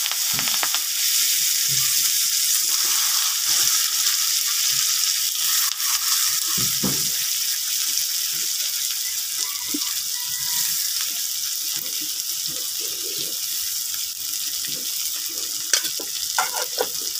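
Freshly added sliced onions sizzling in hot oil in a karahi: a steady frying hiss that eases slightly toward the end.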